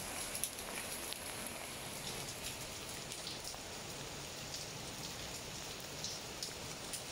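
Steady rain falling on garden foliage, an even hiss with scattered sharper drop ticks.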